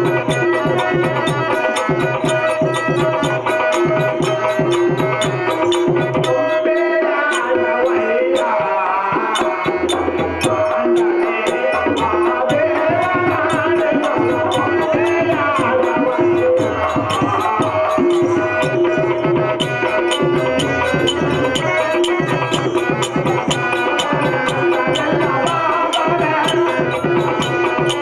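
Folk-theatre ensemble music of the Yakshagana kind: drums beaten in a fast, steady rhythm over a held drone, with a wavering melody line rising above it in the middle.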